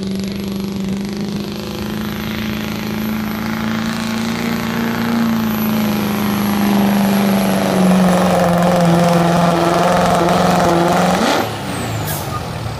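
Chevrolet Duramax 6.6-litre V8 turbodiesel pickup at full throttle under heavy load, dragging a weight-transfer pulling sled: a loud, steady engine note held at high revs that grows louder as the truck comes closer. About eleven seconds in, the throttle is cut as the pull ends and the engine falls away to idle.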